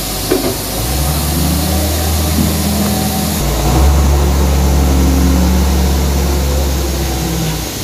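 A heavy engine picks up under load about a second in, runs steadily with a deep hum, shifts pitch partway through, then drops back near the end.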